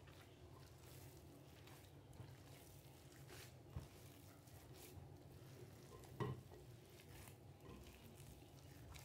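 Faint squelching and soft knocking of a bare hand kneading mashed banana and cassava flour dough in a glass bowl, with two louder knocks about four seconds in and a little after six seconds in.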